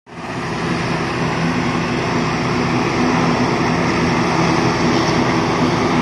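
Turboprop airliner engine running: a loud, steady hum and whine with no change in pitch.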